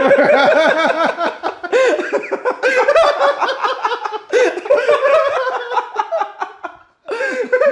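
Hard, high-pitched human laughter in long, pulsing bouts, with a brief break near the end.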